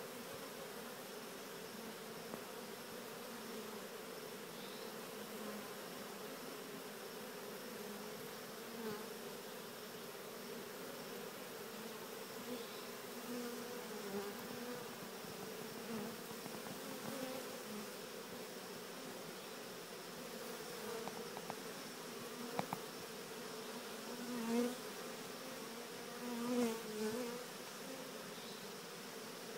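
A honeybee swarm humming steadily, a low even buzz of many wings, swelling louder a few times near the end.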